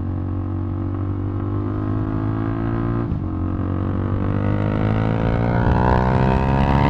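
KTM RC390's single-cylinder engine under way: it holds steady revs, shifts gear about three seconds in, then the revs climb steadily under acceleration until the next shift near the end.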